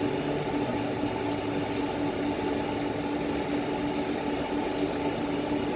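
Steady cockpit noise of a Boeing 747 waiting for takeoff: jet engines idling under an even rush, with a constant low hum and faint high whines.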